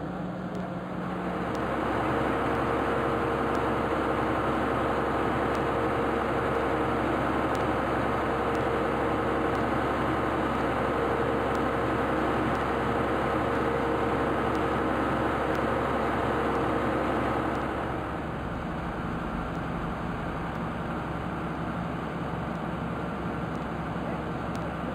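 An engine running steadily, getting louder about two seconds in and dropping back a little near eighteen seconds.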